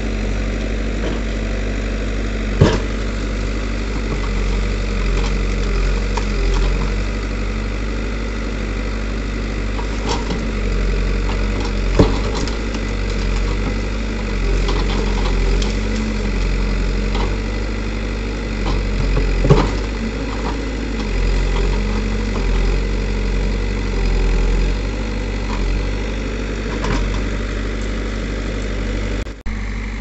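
Diesel engine of a Caterpillar 424B backhoe loader running steadily while the backhoe arm digs out bamboo roots. Three sharp knocks stand out: a few seconds in, near the middle, and about two-thirds of the way through.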